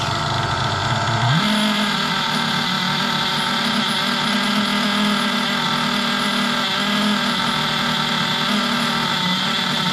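Brand-new O.S. nitro RC engine, a small two-stroke glow engine, running on its first break-in start. About a second in its pitch rises and then holds steady at a fast idle, which keeps the new engine from cutting out.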